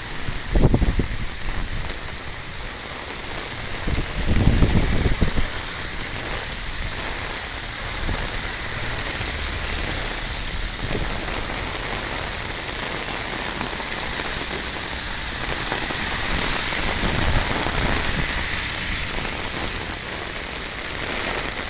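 Steady rain falling. A brief low rumble comes about four seconds in.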